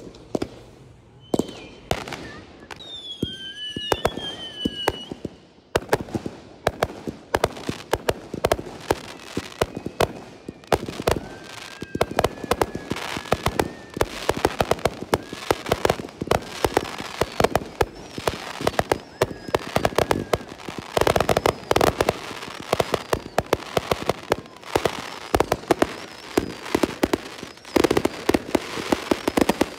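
Fireworks display: aerial shells and multi-shot cakes going off. A few separate bangs and two short falling whistles come first, then from about six seconds in a dense, rapid barrage of bangs and crackling.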